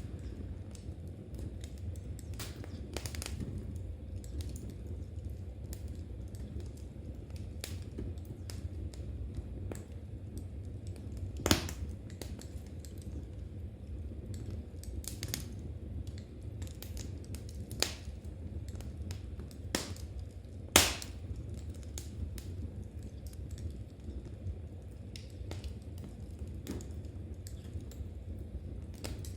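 Wood fire crackling in a fireplace: a steady low rumble with scattered irregular pops, two of them much louder, one near the middle and one about two-thirds through.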